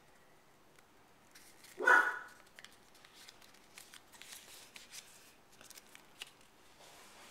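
Origami paper being folded and creased by hand, with faint scattered rustles and crackles. One short, loud yelp about two seconds in.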